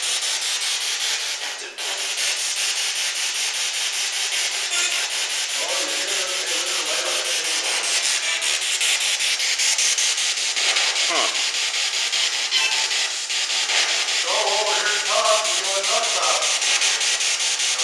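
P-SB7 spirit box sweeping through radio stations: continuous rapidly chopped static with brief snatches of broadcast sound, and a short falling whistle about eleven seconds in.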